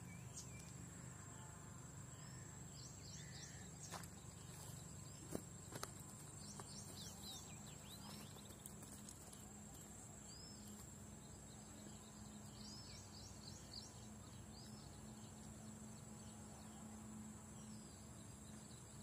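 Quiet outdoor ambience: a steady high-pitched insect drone, with a few quick runs of short, high, falling chirps and some faint clicks.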